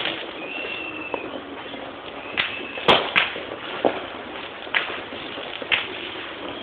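Firecrackers going off: about half a dozen sharp single cracks at irregular spacing, the loudest about three seconds in.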